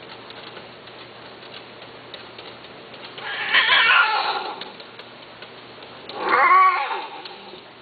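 A cat meowing twice: a long drawn-out meow about three seconds in, then a shorter meow near the end whose pitch rises and falls.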